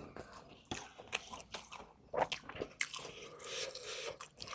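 Close-miked eating sounds: a person biting and chewing food, with a quick irregular run of sharp crunches.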